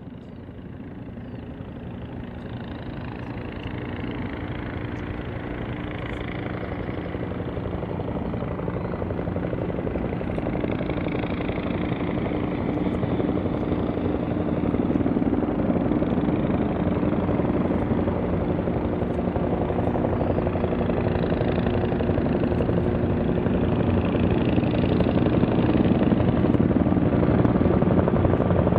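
A formation of seven military helicopters (a Bell UH-1D Huey, a Tiger, an H135, an H145 and three NH90s) approaching, their rotor and turbine noise growing steadily louder.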